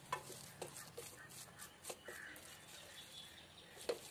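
Wooden spatula knocking and scraping against a metal pan while stirring noodles, a few scattered taps with the loudest near the end.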